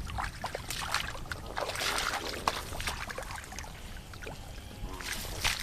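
Irregular wet splashes and squelches of hands groping through shallow muddy water among grass, feeling for catfish.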